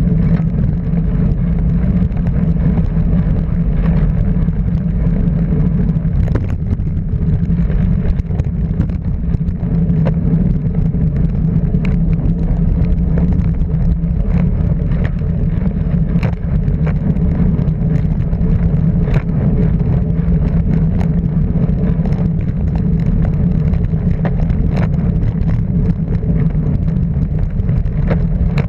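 Vintage motorcycle engine running at a steady cruising speed, heard from on board, with a constant rushing noise over it. The engine's pitch holds steady, with no revving or gear changes standing out.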